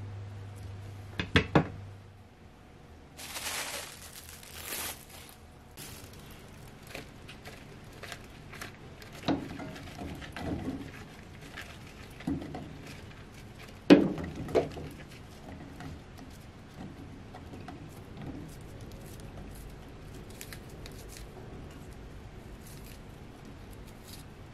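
Food preparation sounds: two sharp strokes of a kitchen knife through onion onto a wooden cutting board, a brief rustle, then a run of soft knocks as sliced onion and shimeji mushrooms go into a saucepan, the loudest about fourteen seconds in. Near the end, faint crackling as maitake mushrooms are torn apart by hand.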